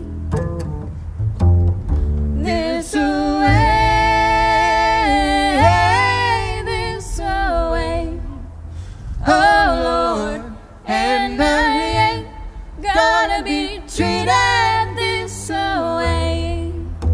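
A woman and a man singing a traditional folk song in two-part harmony over an upright bass, in phrases with short breaks between them.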